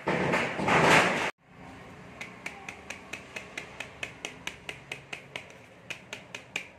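A short burst of loud, dense noise that cuts off suddenly, then a plastic flour sieve tapped by hand with sharp ticks about four times a second as flour is sifted through it.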